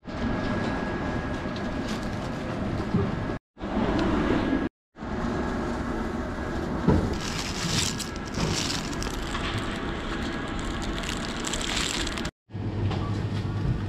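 Steady background din of a busy supermarket, with a faint held high tone and occasional rustling and clatter. It cuts off abruptly three times.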